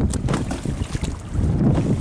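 Wind buffeting the microphone in a gusty low rumble, with choppy sea water splashing against a small boat's hull in short crackles.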